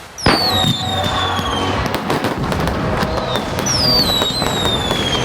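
Fireworks going off: a sharp burst about a quarter second in, then continuous crackling pops, with two long falling whistles, one right after the burst and another about three and a half seconds in.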